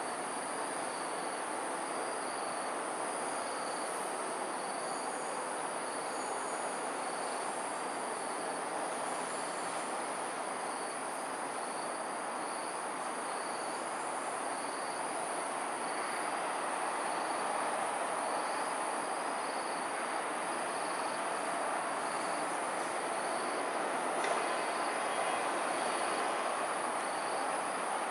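Steady evening outdoor ambience: a constant hiss of distant traffic and city noise, with a high continuous insect drone and a faint chirp repeating a little faster than once a second.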